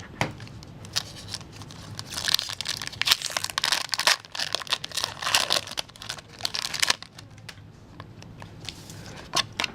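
A Pokémon trading card booster pack's foil wrapper being torn open and crinkled, with dense crackling from about a second in to about seven seconds in, then quieter handling with a few clicks.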